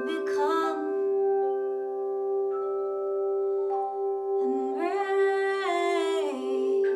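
Singing bowls ringing together in several steady, sustained tones. A wordless sung note wavers over them for about two seconds, starting a little past the middle.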